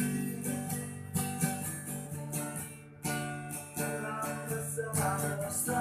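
Acoustic guitar strumming chords between sung lines, with a short break about three seconds in before the strumming picks up again.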